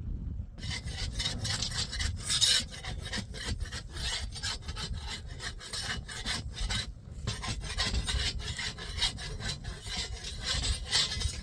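A hand tool rasping or scraping in a quick run of strokes, with a short pause about seven seconds in, over a low rumble.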